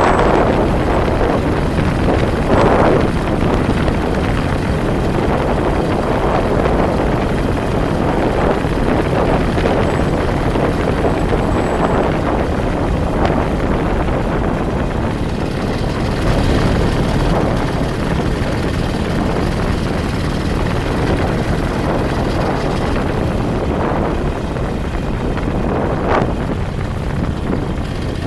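A vehicle driving along a road: steady engine and road noise, with wind buffeting the microphone in swells every second or two.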